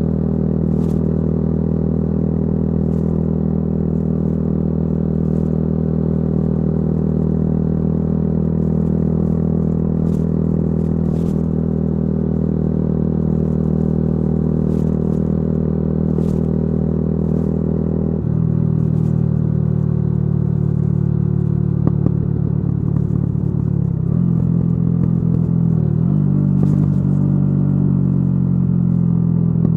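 Yamaha YZF-R125's single-cylinder four-stroke engine running through a modified exhaust, holding a steady note. About two-thirds of the way in the note changes abruptly, and near the end it wavers up and down briefly with the throttle.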